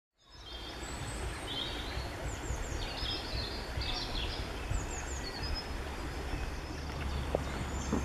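Songbirds chirping and trilling in woodland: many short, high calls over a steady low rumble of outdoor background noise. The sound fades in just after the start.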